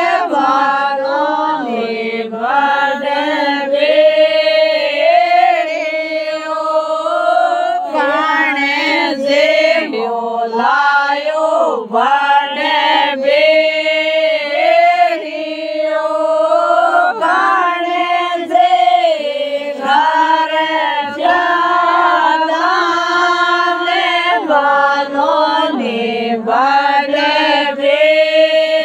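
Singing of a traditional folk wedding song (vivah geet), with long held notes that bend in pitch. No instruments or beat are heard.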